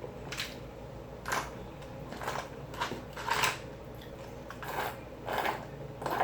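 A person chewing food close to the microphone, with short mouth noises coming irregularly, about one a second.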